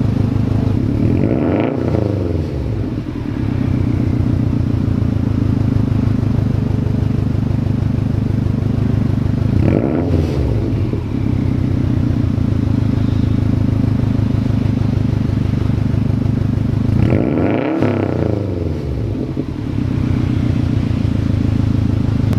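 2018 Subaru WRX STI's turbocharged 2.5-litre flat-four idling warm through a Tomei Expreme Ti single-exit titanium catback exhaust. It is revved three times to about 2,500–3,000 rpm, about two seconds in, around ten seconds and near eighteen seconds, each rev rising and falling quickly back to idle with a deep boxer rumble.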